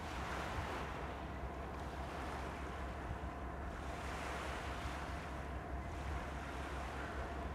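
Small waves washing against the rocky shore, the wash swelling and falling back every couple of seconds, over a steady low rumble.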